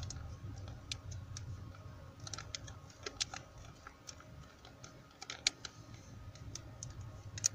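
Faint, irregular crinkles and clicks of a foil cheese-sauce pouch being squeezed and wrung out over a pot to get the last of the sauce.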